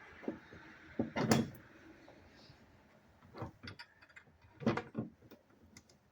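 Several knocks and clunks of metal parts and hand tools being handled during a truck bed toolbox install, the loudest a little after a second in and just before five seconds in.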